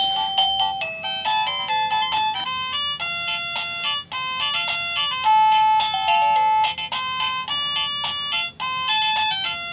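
Liztek wireless doorbell receiver playing one of its built-in chime tunes: a quick electronic melody of short beeping notes, several a second.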